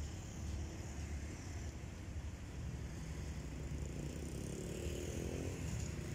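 Low rumble of a distant engine running, with an engine hum growing louder from about four seconds in.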